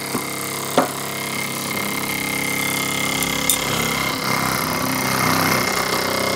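Jensen Model 85 toy steam engine's single oscillating cylinder running fast under steam, a steady rapid mechanical running sound with the light engine shaking on the table. It grows louder from about two seconds in, and there is a sharp knock about a second in.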